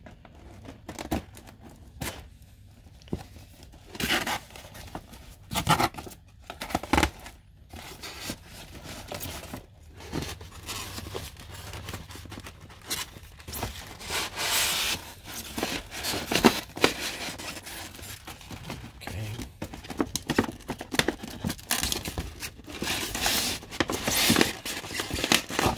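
Scissors cutting a cardboard toy box, then the box being handled and its cardboard end flap torn and pried open, with irregular rustling, scraping and crinkling of the packaging.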